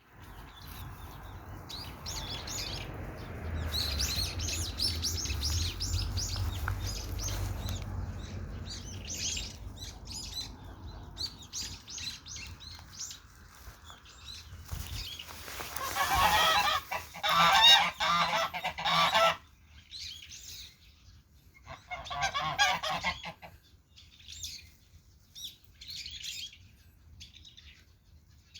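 Domestic geese honking in two loud bouts, one about halfway through and a shorter one a few seconds later, with higher chirping calls in between. A low rumble runs under the first several seconds.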